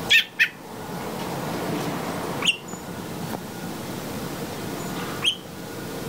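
Short, high-pitched bird chirps: a quick pair at the start, then single chirps about two and a half and five seconds in, over a steady background noise.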